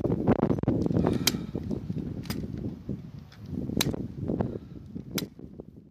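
Wind buffeting the microphone, with four sharp clicks a second or so apart as an M4 carbine's collapsible stock is slid through its detent positions toward A1 length.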